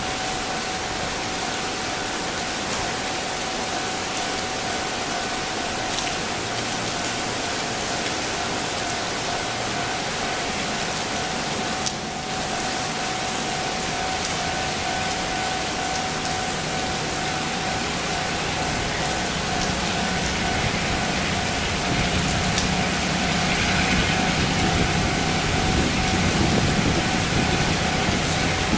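Steady rain-like hiss with a steady high tone running under it; over the last several seconds the low engine hum of an approaching R20 diesel-electric locomotive hauling a coal train grows louder.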